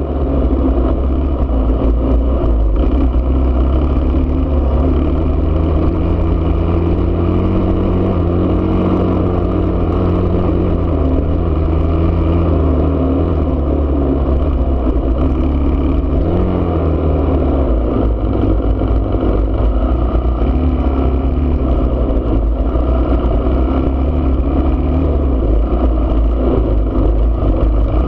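Enduro motorcycle engine running under way, heard from the bike itself, its pitch rising and dipping gently with the throttle over a steady low rumble.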